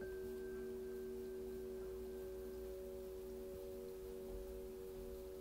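Sustained ringing tones of a meditation drone, some held steady and some pulsing, with a faint higher tone that enters at the start and fades out after about two and a half seconds.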